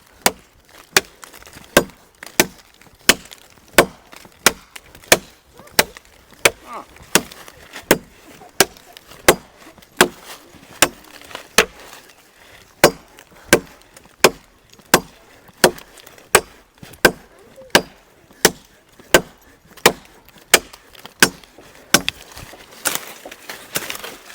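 Machete chopping into a green sycamore trunk, a steady run of sharp blade strikes about one and a half a second. Near the end there is a stretch of rougher, noisier sound among the strikes.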